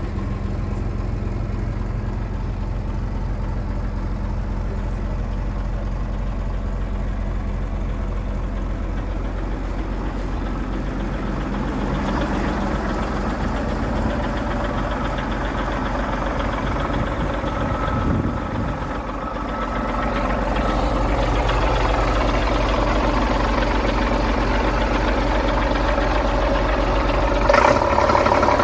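Scania P 93HL truck's six-cylinder diesel engine idling steadily, heard first inside the cab and then from outside beside and under the chassis, where it sounds fuller. A brief knock near the end.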